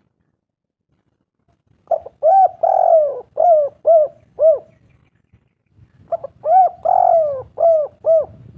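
Spotted dove (tekukur) cooing: two phrases of about six short, rhythmic coo notes each, the first starting about two seconds in and the second a little over a second after the first ends.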